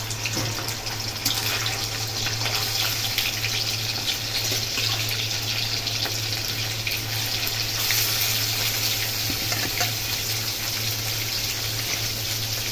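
Paneer cubes sizzling in hot oil in a kadai, a steady frying hiss with many fine crackles, over a steady low hum.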